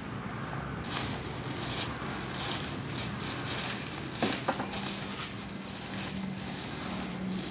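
Plastic bags and paper rustling and crinkling in repeated bursts as rubbish is rummaged through in a steel drum with a litter grabber, with a couple of light clicks about halfway. A faint steady hum runs underneath from about halfway on.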